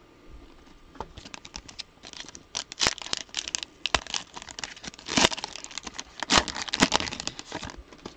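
Plastic wrapper of a Panini Prizm football card pack crinkling and tearing as it is ripped open, a dense run of crackles starting about a second in and ending near the end.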